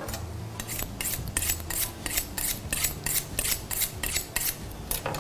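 A carrot being scraped with a blade: quick rasping strokes, about four a second, starting about half a second in.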